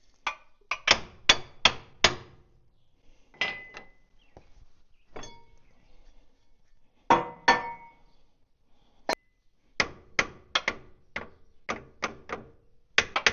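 Hammer blows on a stuck steel part of a Caterpillar D4D bulldozer, each ringing briefly. The blows come in irregular bursts at first, then settle into a steady run of about two or three a second near the end.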